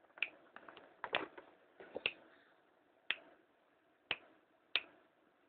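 Fingers snapping in single sharp clicks, about one a second, close to a dog's ears to test whether it responds after a grand mal seizure.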